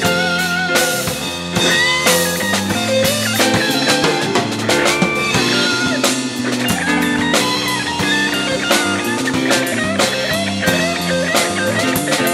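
Live jazz-funk fusion band playing, a busy drum beat under a wavering lead melody line.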